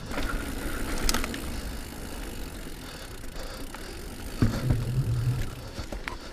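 Diamondback Release 3 mountain bike ridden over a dirt trail: steady tyre and drivetrain noise with scattered rattles and clicks. About four and a half seconds in there is a sharp knock, followed by a low hum for about a second.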